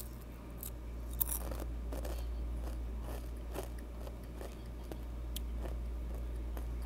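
Crunching and chewing Takis rolled tortilla chips close to the microphone: irregular crisp crunches, the sharpest about a second and a half in, over a steady low hum.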